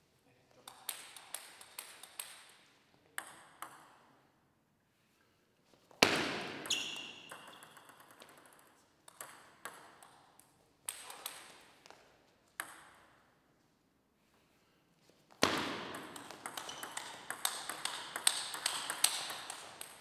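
Table tennis ball clicking off the table and the rubber bats: scattered bounces at first, then quick hits in a rally near the end, echoing in the hall.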